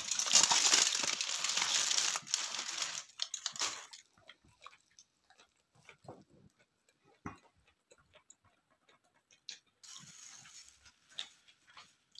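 Close-up eating sounds from hand-held food: a loud, noisy slurp or suck lasting about three seconds at the start, then quiet chewing and small mouth clicks, with a softer slurp near the end.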